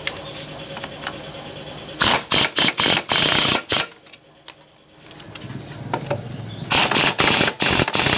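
Impact wrench hammering in two bursts, about two seconds in and again near the end, tightening the nuts on a scooter's CVT pulleys: first the front variator nut, then the rear clutch nut.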